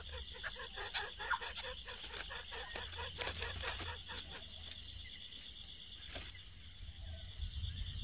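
Steady outdoor insect chirping with a short high chirp repeating about every second, and a run of quick faint clicks in the first half that fades out.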